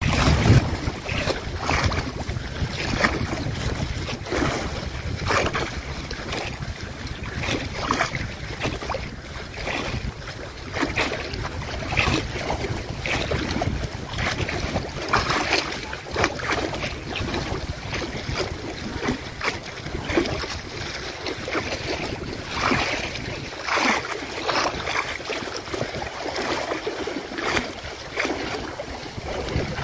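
Small wind-driven waves on a lake lapping and splashing irregularly, about once a second, over a low wind rumble on the microphone that eases about two-thirds of the way through.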